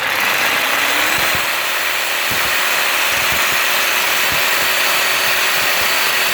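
Harbor Freight reciprocating saw running and cutting with an old blade: a loud steady rasping, with a motor whine that rises about a second in and then holds, and scattered low knocks.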